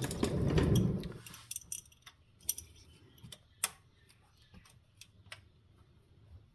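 Metal hand tools clattering for about the first second as a smaller adjustable wrench is fetched, then scattered light metallic clicks and taps, two of them sharper.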